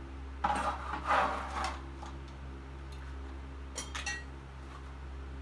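Loose metal parts being handled and sorted: a rattling clatter of metal on metal about half a second in, then a couple of sharp clinks with a short ring near the end, over a steady low hum.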